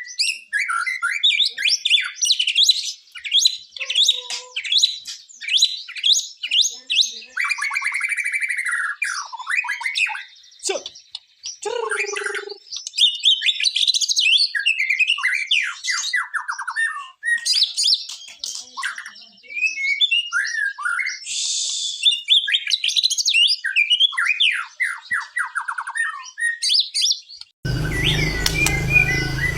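White-rumped shama (murai batu) singing in full voice, a long, varied run of quick whistles, rattles and trills with few pauses. Near the end a steady low hum comes in under the song.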